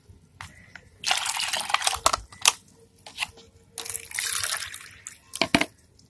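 Water pouring and splashing in two short spells, one about a second in and one around four seconds in, with drips falling into a plastic bowl of diluted banana-peel liquid fertiliser. Two sharp knocks come between the spells.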